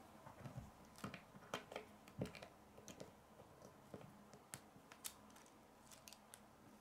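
Faint, scattered clicks and taps of plastic K'nex pieces being handled, pulled apart and fitted together.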